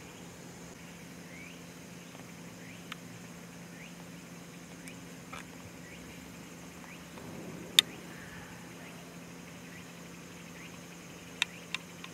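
Outdoor ambience: a steady low hum and a steady high insect drone, with faint short bird chirps. Sharp clicks cut through, one loud click about eight seconds in and two more near the end.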